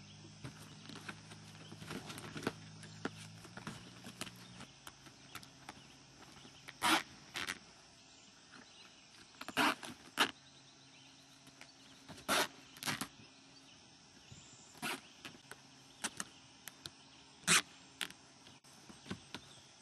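Corrugated plastic (Coroplast) kayak hull being folded and handled: irregular sharp cracks and pops of the plastic sheets flexing and snapping into shape, a dozen or so spread out. A faint steady background lies under them.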